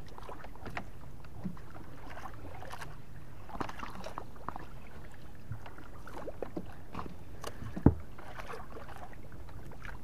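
Water lapping against a small wooden boat's hull, with scattered clicks and knocks and one sharp knock about eight seconds in.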